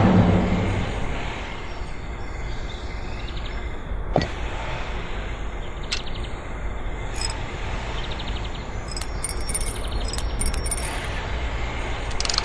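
Steady low workshop background noise with a few sharp knocks and a short cluster of light clinks, from sand-casting mould boxes and tools being handled.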